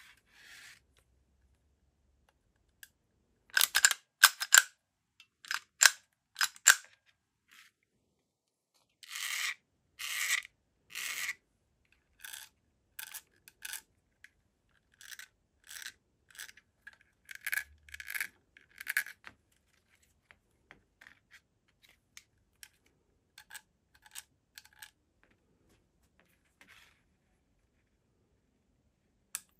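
Springfield Echelon 9×19 mm pistol being worked by hand: a run of sharp metallic clicks and snaps, loudest about four seconds in. About nine to eleven seconds in come three longer sliding rasps, and the clicks that follow fade to fainter ticks.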